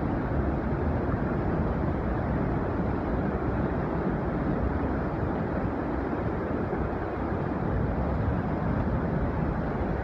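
The Yellowstone River pouring over the brink of the Upper Falls: a loud, deep, unbroken rush of falling and churning water.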